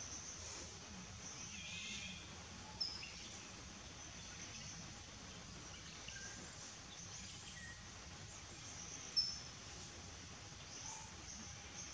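Outdoor ambience: a steady high insect drone with a few faint scattered calls, broken by two short, sharp, high chirps, about three seconds in and about nine seconds in.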